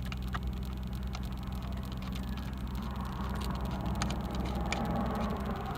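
Light clicks and taps of plastic and metal steering-column parts being handled and fitted, over a steady low hum.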